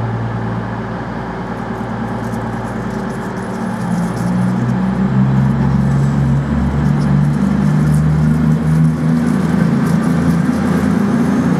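Class 220 Voyager diesel multiple unit approaching slowly along the platform, its underfloor diesel engines giving a steady low drone that grows louder about four seconds in as the train comes closer.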